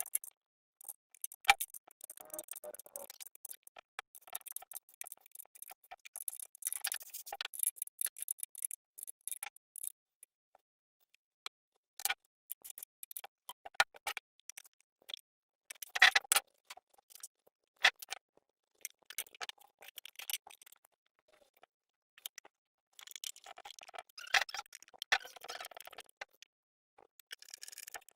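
Irregular clicks, taps and short scraping sounds of small metal parts and hand tools being handled during a generator engine repair, with no engine running.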